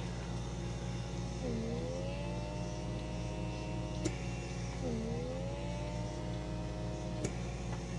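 Handheld pore vacuum cleaner running on its fifth suction setting: a steady motor hum, and twice a whine that dips in pitch, climbs back and holds for a couple of seconds before cutting off with a click.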